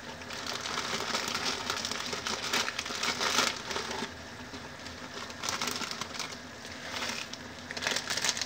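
Plastic instant-noodle packet crinkling as the dried noodle block is shaken out of it into a wok, loudest about three seconds in and again near the end. Underneath it is a steady bubbling from the water boiling in the wok.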